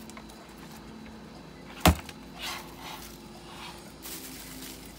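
Replica M50 gas mask being handled: a single sharp knock about two seconds in, followed by softer rubbing and rustling as it is turned over.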